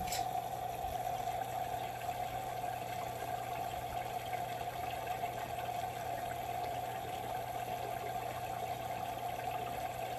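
Submersible water pump (a VIVOSUN 800 GPH) running in the bucket under a 3D-printed hydroponic tower, with water trickling back down through the tower: a steady low hum under an even splashing of water.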